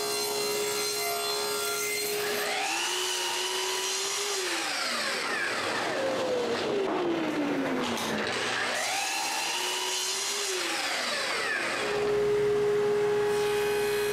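Woodworking power saws cutting thin boards: a King Industrial table saw running with a steady hum, then a sliding miter saw motor whining up and back down twice for crosscuts, with a long falling whine as a blade winds down between them. A steady motor hum from another machine starts near the end.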